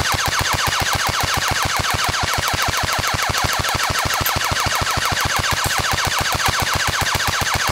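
Airsoft rifle firing one long unbroken burst on full auto, about nine to ten shots a second, feeding steadily. The rate of fire wavers up and down, and the shooting sounds bad.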